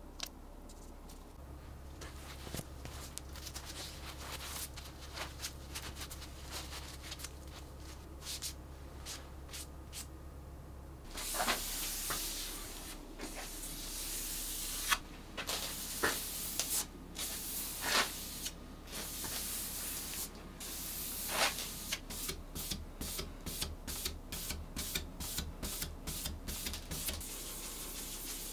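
French-polishing pad of cotton-wrapped wool, charged with shellac, rubbed over the wooden top of a chest of drawers: a hissing, rasping wipe in separate strokes with short gaps, turning into quick short back-and-forth strokes near the end. Before the rubbing starts, about the first ten seconds hold only faint small clicks and taps.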